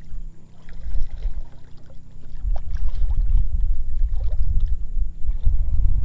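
Wind buffeting the microphone as a gusty low rumble, lighter in the first two seconds and then heavier, with a few faint small ticks over it.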